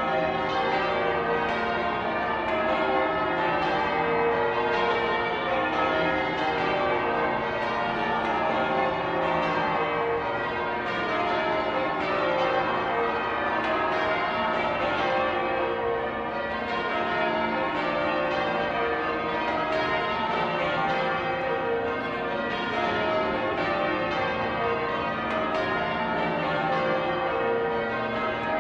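Church bells change ringing: a continuous peal of many bells sounding over one another.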